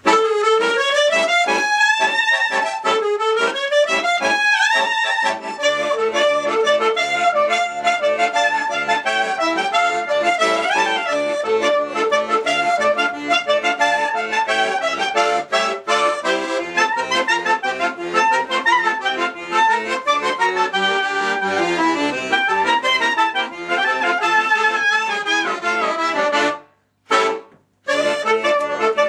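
Piano accordion and clarinet playing a klezmer tune together. The clarinet opens with rising, swooping glides over held accordion chords, then the two play on in a steady rhythm. The music breaks off twice, briefly, near the end.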